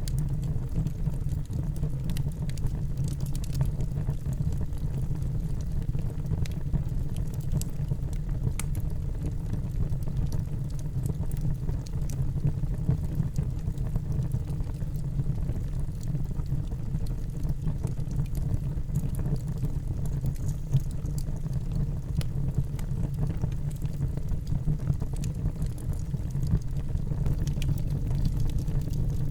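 Wood fire burning in a fireplace: a steady low rumble of the flames with scattered crackles and small pops.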